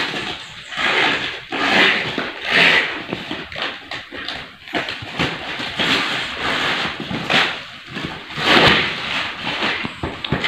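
Plastic wrap and packing tape crinkling and rustling as a long cardboard box is unwrapped by hand, in irregular noisy bursts, with the cardboard shifting and scraping.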